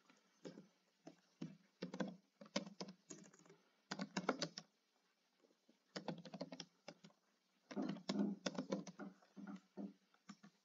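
Computer keyboard typing: quick runs of keystrokes in short bursts, with brief pauses between them.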